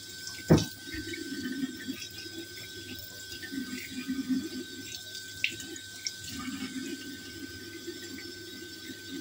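Kitchen tap running into a sink while a fish is rinsed and cleaned by hand, with one sharp knock about half a second in. A faint steady high tone runs underneath.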